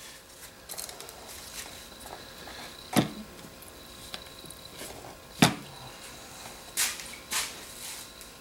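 Handling noise on a workbench: two sharp knocks, about three seconds in and again about five seconds in, with lighter clicks and rustling between and after them, as items are picked up and set down.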